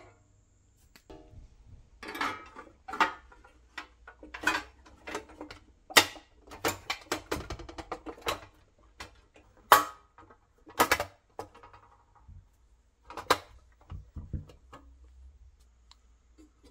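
Painted pressed-steel toy parts clanking and clicking as they are handled and fitted together: a series of sharp metallic knocks, some ringing briefly, then a quiet stretch near the end.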